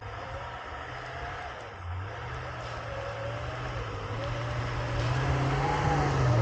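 A truck's engine working up a steep snowy trail climb, its revs rising and falling, getting steadily louder throughout.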